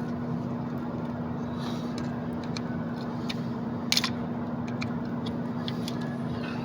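Scattered small clicks and one sharp clack about four seconds in, from hands and tools prying at parts on the engine during a gasket job, over a steady hum.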